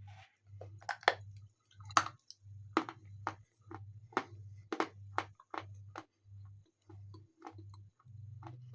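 Chewing lumps of Khrapovsky natural chalk: a run of sharp, crisp crunches about every half second that grow softer and sparser after about six seconds, over a faint low pulsing hum.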